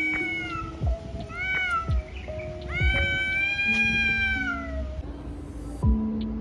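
Cat yowling in a face-off with another cat: three drawn-out calls, a short one about a second and a half in and the longest from about three to five seconds in, over soft background music.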